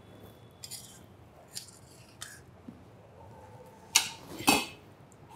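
A steel spoon scraping cooked rice out of a pressure cooker and stirring it in a stainless steel pan: a few light scrapes, then two sharp, ringing metal clinks about four seconds in.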